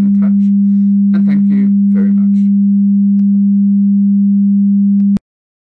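A low, steady sine tone generated by a Web Audio API demo in the browser. It cuts off suddenly about five seconds in.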